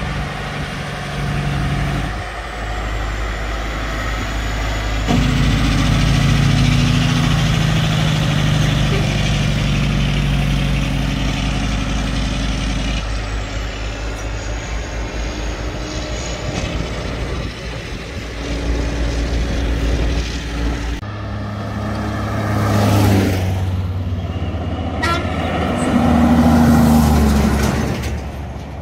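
Heavy diesel trucks driving past on the road, their engines running steadily. The sound changes abruptly a few times between short takes.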